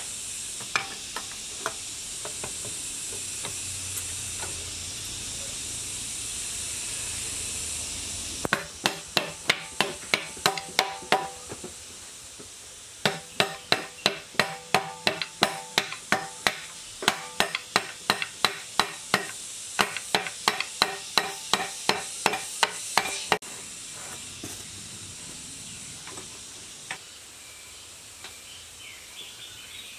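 A steady hiss, then metal being struck with a hammer in quick, even blows about four a second, each blow ringing. The blows come in two runs with a short pause between.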